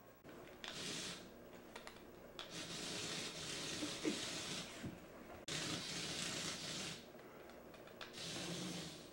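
Small electric motor and plastic gearbox of a radio-controlled toy truck whirring as it drives over a tile floor, running in several bursts of a second or more with short pauses between.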